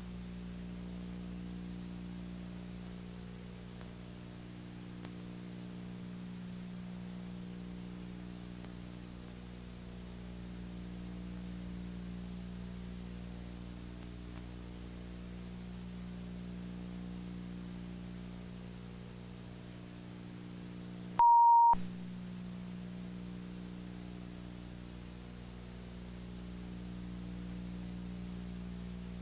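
Steady electrical hum made of several low tones stacked together, with a hiss. About 21 seconds in, one loud, short, high beep cuts in and the hum drops out while it sounds.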